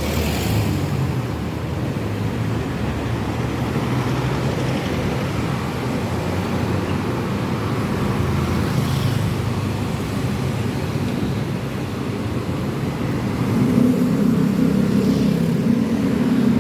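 Steady road vehicle noise, a low rumble of traffic or engine that swells louder about three-quarters of the way through.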